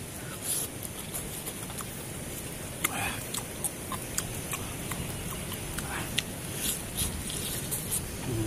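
Close-up eating sounds from someone eating a cooked chicken leg by hand: short wet mouth clicks and lip smacks, with a couple of brief sucking sounds as meat is pulled from the bone, over a steady high hiss.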